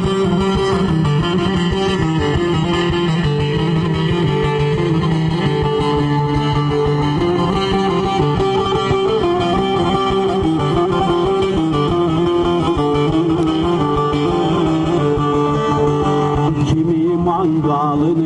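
Turkish folk music played on a plucked string instrument: a steady, fast run of picked notes.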